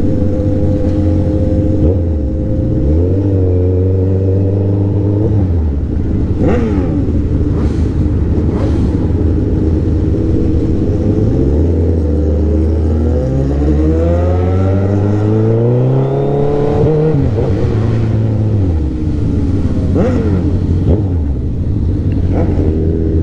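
Vehicle engines running and revving: a steady low drone, with one engine climbing in pitch over several seconds and falling away near the end, and a few sharp cracks in between.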